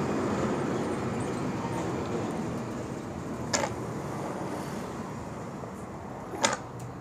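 Steady traffic-like background noise, with two short metallic clicks, about halfway through and again near the end, as the coil spring is worked into a Honda CG125 front fork tube.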